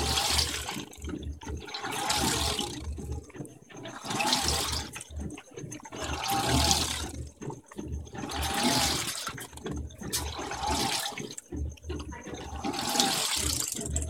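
Electrolux top-load washer agitating, with clothes and water swishing in back-and-forth strokes about every two seconds, each stroke with a low hum from the drive motor. The wash basket is unlocked (destravada), so it turns along with the agitator.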